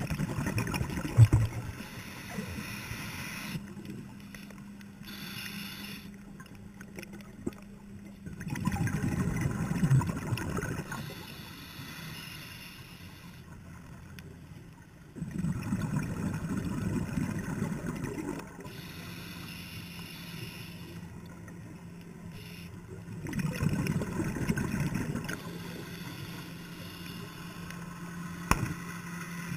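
Scuba diver breathing through a regulator, heard through an underwater camera: four loud bubbling bursts of exhaled air, about every seven to eight seconds, with quieter stretches between.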